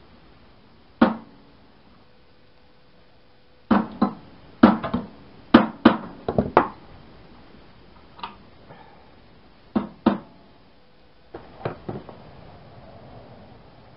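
A mallet tapping the impeller onto the pump shaft of a Champion 2-inch trash pump, seating it after it has been screwed on. There are about fifteen sharp knocks in irregular bunches, thickest around the middle.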